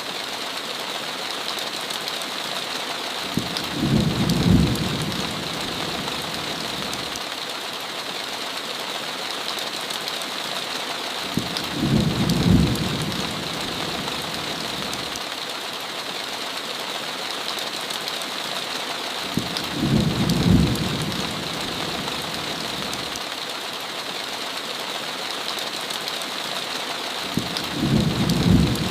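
Heavy rain falling steadily, a constant hiss. A short, low thunder rumble comes four times, evenly about every eight seconds.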